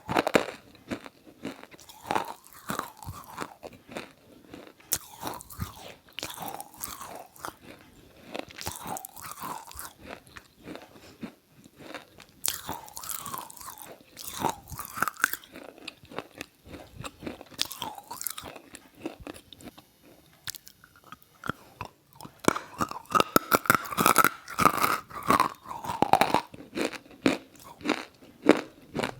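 Close-up crunching and chewing of something wet and brittle: irregular crisp bites and crunches, denser and louder a little before the end.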